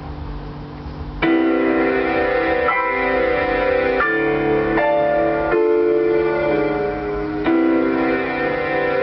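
Keyboard instrument playing a slow piece of music. Soft held low notes give way, about a second in, to loud sustained full chords that change every couple of seconds.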